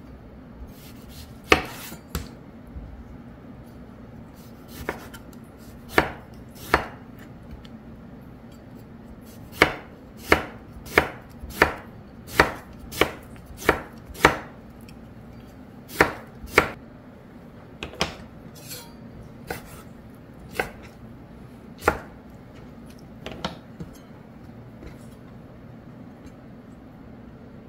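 Chef's knife slicing pickled radish into rounds on a wooden cutting board, each stroke ending in a sharp knock on the board. The cuts are sparse at first, come in a quick run of about two a second in the middle, then slow again.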